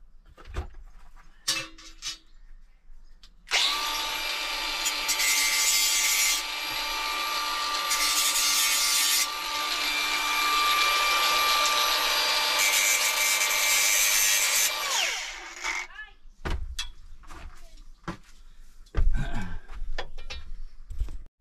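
A power tool runs for about twelve seconds with a steady whine over dense cutting noise that grows louder in stretches, then winds down with a falling pitch. Scattered knocks and thumps follow.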